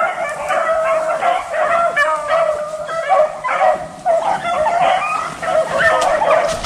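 A pack of beagles in full cry running a rabbit: many voices baying and yelping over one another without a break.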